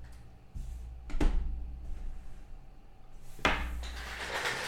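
Handling noises on a tabletop: a light knock about half a second in, a sharper knock about a second in, and another about three and a half seconds in followed by a second of rustling.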